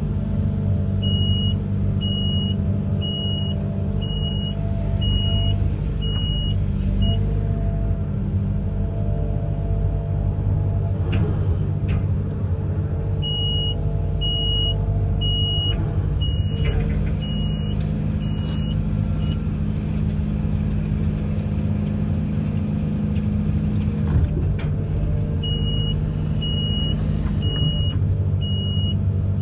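Amphibious excavator's diesel engine running steadily, with its warning beeper sounding in three runs of evenly spaced beeps, about one a second, and a few knocks in between.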